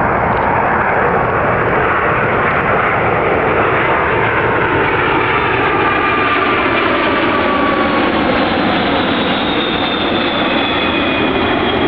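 A British Airways Boeing 747-400's four Rolls-Royce RB211 turbofans on low final approach, passing close overhead: loud, steady jet engine noise. In the second half a high whine slowly falls in pitch as the jet goes past.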